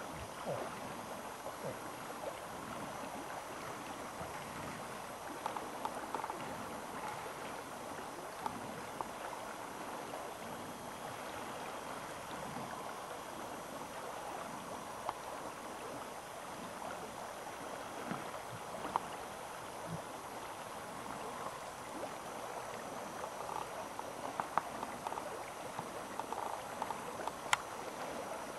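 Steady rushing outdoor background noise, with scattered faint clicks and snaps and one sharper click near the end.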